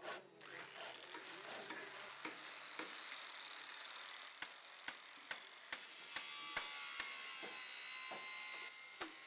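Woodworking workshop: a steady hiss with a faint high whine from a power woodworking tool, and sharp knocks about twice a second from about halfway through.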